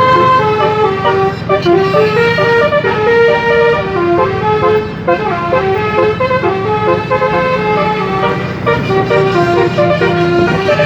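Bus 'telolet' multi-tone horn playing a stepping, continuous tune of changing notes over a steady low hum.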